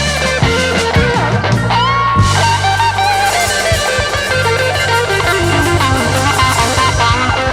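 Background music led by guitar over sustained bass, with drums keeping a beat.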